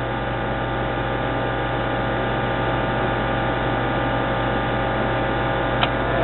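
Steady hum of running computer equipment, with one faint click near the end.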